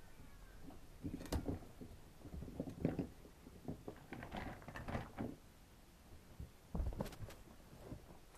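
Scattered knocks and rustles of household objects being moved and handled, a few at a time with short gaps between them, with a louder cluster near the end.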